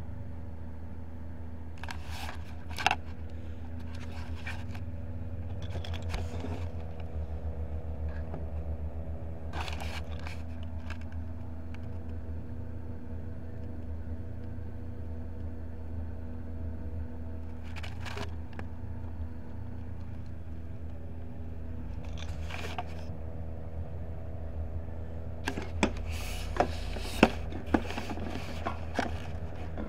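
Handling and scraping noises in short bursts over a steady low hum, with a few sharp clicks, most of them near the end.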